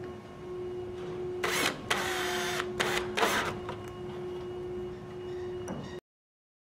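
Cordless drill with a Phillips bit driving sheet-metal screws into a machine's bottom panel, in four short whirring runs between about one and a half and three and a half seconds in.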